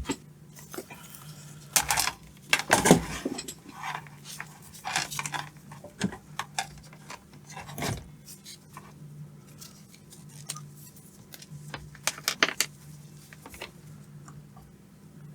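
Scattered clicks, taps and light clatter of small metal tools and probes handled on a workbench while a circuit board's mains capacitor is being discharged, over a faint steady low hum.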